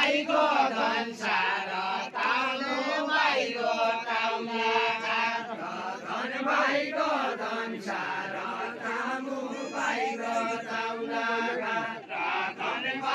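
A group of voices chanting a Nepali deuda song together in a dance line, in sung phrases with short breaks between them.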